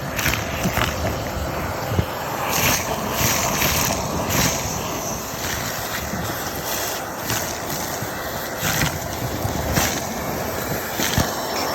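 Construction vacuum cleaner running steadily, with irregular brief surges of high hiss every second or two.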